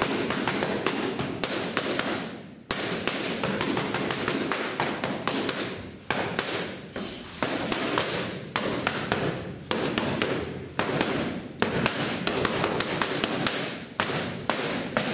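Boxing gloves punching Everlast focus mitts: rapid smacks, several a second, in flurries of combinations with short breaks between them.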